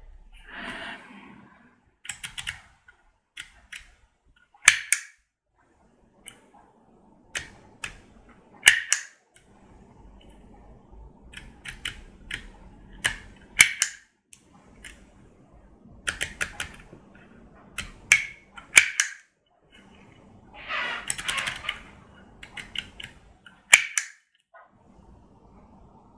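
Handheld embossing label maker at work: the letter wheel clicking as it is turned to each letter, and the handle squeezed shut with a sharp snap to press letters into the plastic tape, about half a dozen loud snaps among clusters of smaller clicks. A longer scraping rustle comes a little after two-thirds of the way through.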